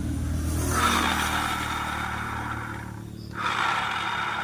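Honda Vario scooter's rear wheel and rear CVT pulley being spun, the pulley's bearings giving a rough, grinding whir that dies away and starts again about three seconds in. The sound is the sign of worn bearings inside the rear pulley.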